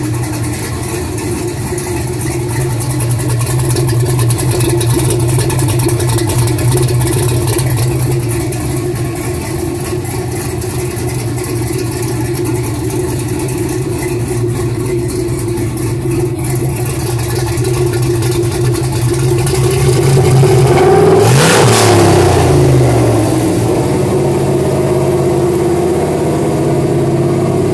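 The 5.3-litre all-aluminium L33 V8 idling steadily, with one throttle blip about three-quarters of the way through that rises in pitch and settles back to idle.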